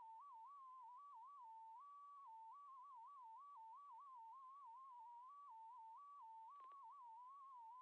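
A faint pure electronic tone that hops irregularly between two close pitches, one slightly higher than the other. There is a faint click at the start and a quick double click near the end.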